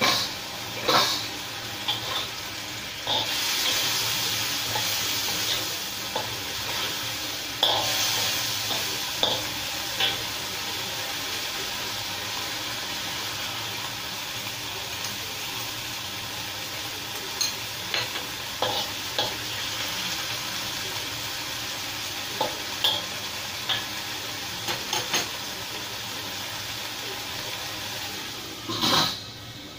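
Long beans sizzling as they are stir-fried in a wok over a gas flame, with the spatula scraping and knocking against the wok now and then. Near the end there is a louder clatter as the steel lid is set back on the wok.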